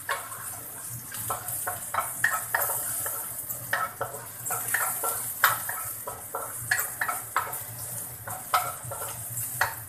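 Chopped garlic sizzling in hot oil in a nonstick wok while a wooden spatula stirs it, knocking and scraping against the pan about once or twice a second. This is the garlic being sautéed until fragrant. A low steady hum runs underneath.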